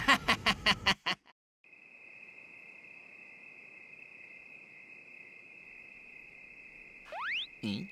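A cartoon wolf's quick laugh for about the first second. After a brief gap, a steady chirring of crickets sets the night-time ambience. Near the end a short rising whistle-like glide sounds.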